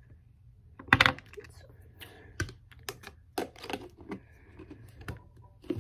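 Long fingernails clicking and tapping against a tub of cotton swabs while trying to pick one out, with a louder knock about a second in.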